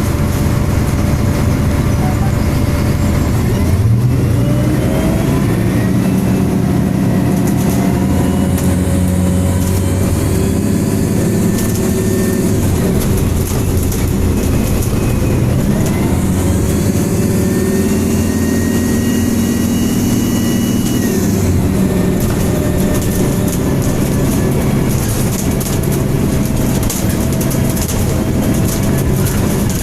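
Diesel engine and cooling fan of a MAN single-deck bus with Alexander Enviro 300 body, heard from inside the bus. The engine pulls away and speeds up twice, with a whine rising alongside it over the steady running.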